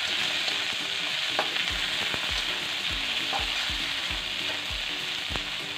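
Sliced okra sizzling in hot oil with browned garlic in a wok, a steady frying hiss with a few light knocks now and then.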